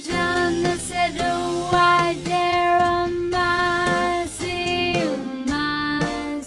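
Background music: a song with a high-pitched, child-like singing voice, held notes changing about every half second with short slides between them.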